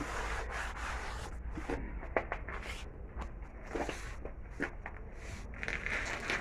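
Scattered light knocks, clicks and scrapes of tools and parts being handled during truck tyre work, with one sharper knock about two seconds in.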